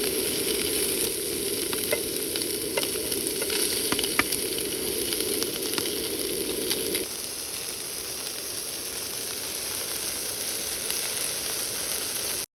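Food sizzling and frying in a hot pan, a steady hiss with small pops and crackles; the fuller, lower part of the sizzle drops away about halfway through.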